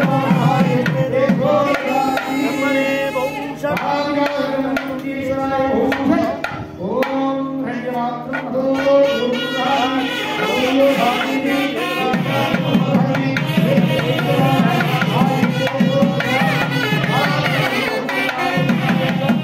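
Indian devotional music: singing over a steady drum beat.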